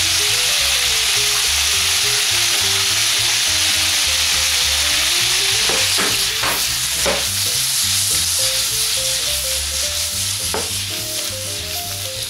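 Carrot slices frying in a non-stick frying pan, sizzling steadily in the last of the oil now that the cooking liquid has nearly evaporated. From about six seconds in, the pan is shaken to toss the carrots, with a few knocks and scrapes, and the sizzle eases a little.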